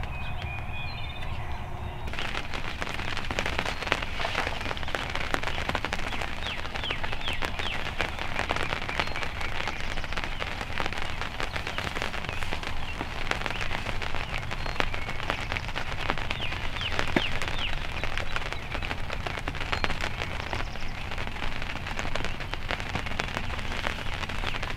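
Rain pattering close to the microphone, a dense steady crackle of small drop ticks that sets in abruptly about two seconds in.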